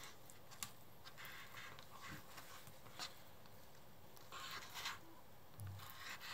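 Faint slicing and scraping of a kitchen knife cutting raw salmon fillet on a cutting board, with a couple of light taps of the blade against the board.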